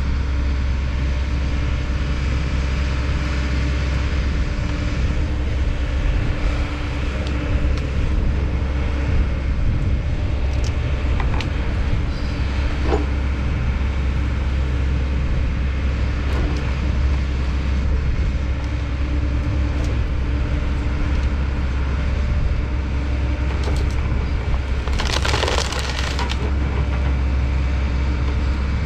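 Kobelco SK210 hydraulic excavator's diesel engine running steadily under working load, a constant low rumble with a steady hum. About 25 seconds in there is a brief noisy burst, with a few faint clicks earlier.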